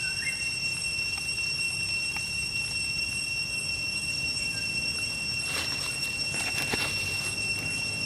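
Dry leaf litter rustling and crackling as macaques shift about on it, strongest about five to seven seconds in. Under it runs a steady high-pitched whine, and a brief rising chirp comes near the start.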